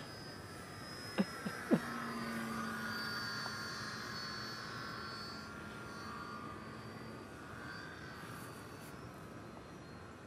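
Electric motor and propeller of a Lee Ulinger SF1 RC foam airplane whining in flight, the whine slowly fading. Two short clicks come a little over a second in.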